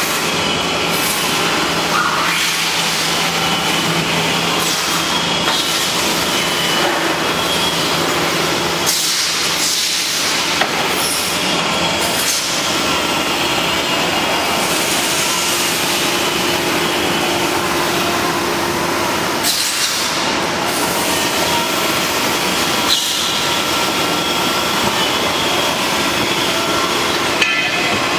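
Bakery cooling conveyor running: a steady mechanical hum and rumble from its belts and drives, with a few faint steady tones and occasional light knocks.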